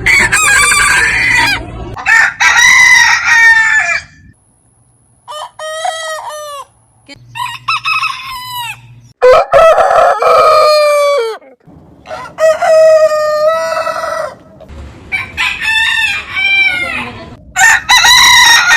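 Roosters crowing one after another, about eight loud cock-a-doodle-doo calls of one to two and a half seconds each, each call from a different clip with abrupt cuts and short pauses between them.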